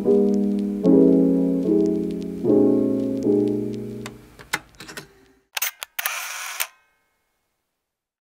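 Background piano music, a chord struck a little under once a second and ringing down, then a camera shutter clicking and whirring a few times about five to six seconds in.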